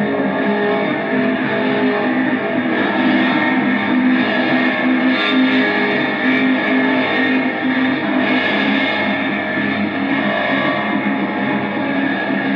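Improvised drone music of distorted electric guitars through effects: a dense, unbroken wall of sustained, overlapping tones with no clear beat.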